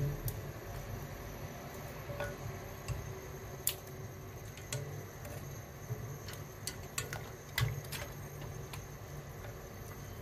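Wooden chopsticks knocking lightly and irregularly against a stainless steel pot while pork pieces are stirred in heating water, over a steady low hum.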